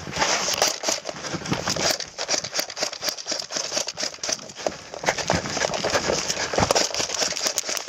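Irregular crunching and rustling from a player moving on foot through tall grass and over gravel, with clothing and gear brushing against the camera.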